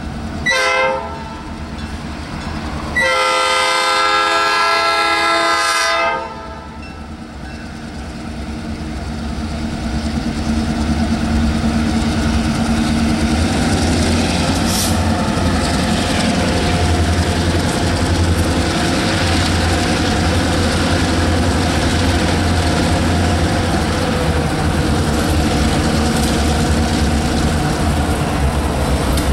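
Maryland Midland EMD GP38-3 diesel locomotives: a short horn blast, then a long chord blast of about three seconds, the close of a grade-crossing signal. After that, the locomotives' engines rumble, growing louder as they approach and then holding steady and loud.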